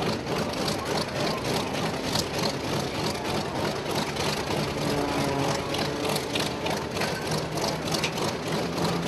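Piston aircraft engines idling on the ground: a continuous, rough, rapidly pulsing engine sound. A steadier low hum comes in during the last few seconds.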